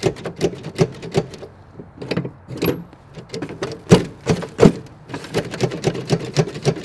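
Twin-engine go kart running on only one of its Honda clone engines, the other having quit from a blown ignition coil, with sharp uneven clanks about two or three times a second.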